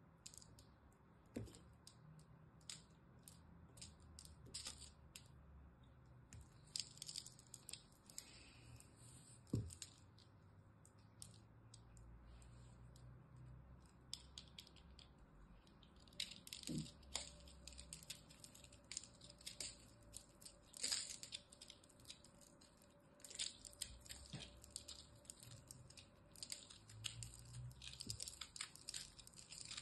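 Utility-knife blade cutting into a crumbly ball of compressed soap, with crisp crackling and crunching as pieces break off and fall. The crackling thins out for a few seconds near the middle and is densest in the second half.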